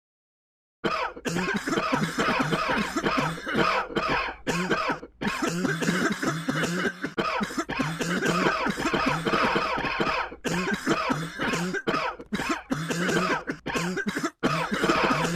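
Coughing, one cough after another in quick succession with hardly a pause, starting about a second in.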